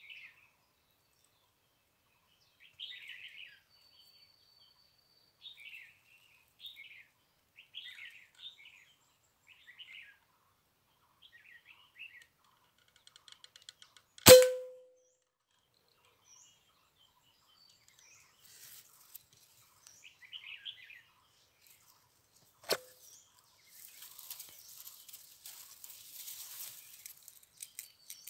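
Small birds chirping in short calls, then a single sharp shot from a PCP air rifle about halfway through, the loudest sound, with a brief ring. A second, quieter crack comes about eight seconds later, followed by faint rustling.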